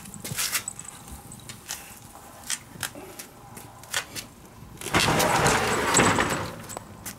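A few light clicks and knocks, then a wooden sliding door of an old house rolling open along its track for about a second and a half near the end, the loudest sound here.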